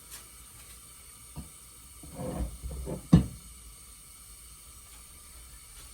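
Pan and cookware being handled at the stove: a light tap, a short spell of shuffling, then one sharp clunk about three seconds in, as the pan is set down to heat.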